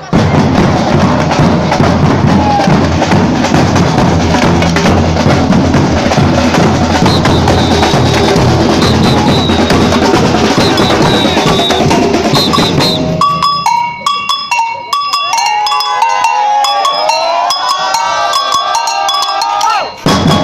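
Batucada samba percussion group playing a dense full-ensemble drum rhythm. About thirteen seconds in the drumming stops abruptly, giving way to a sparser passage of separate ringing, bell-like pitched strikes and sliding tones.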